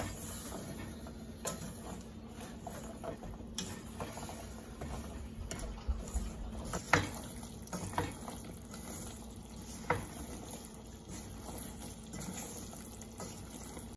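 A wooden spatula stirring fried shakarpara pieces through thick sugar syrup in a stainless steel saucepan, scraping and clacking against the pan, with a sharp knock now and then; the loudest comes about seven seconds in. A low steady hum runs underneath. This is the sugar-coating stage, stirred slowly so the pieces don't break.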